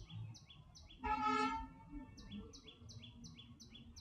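Faint bird chirping in quick repeated notes, about four a second. About a second in the chirps pause while a short steady pitched tone sounds for about half a second.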